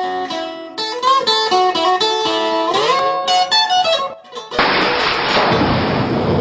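Acoustic guitar playing blues, plucked notes with some sliding up in pitch. About four and a half seconds in, the notes give way to a loud rushing hiss that lasts nearly two seconds and stops abruptly.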